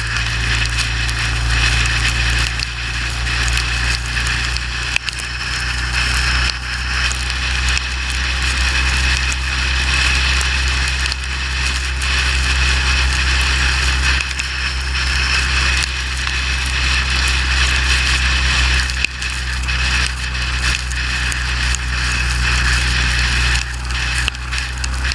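Motorcycle riding at highway speed on a wet road: a steady low engine and wind drone under a continuous hiss of tyre spray and rain.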